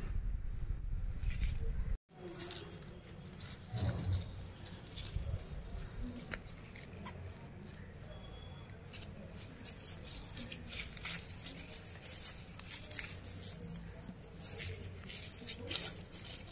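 Amaranth leaves rustling and crackling as they are handled and plucked off their stems by hand, with many small irregular clicks. A low rumble in the first two seconds cuts off abruptly.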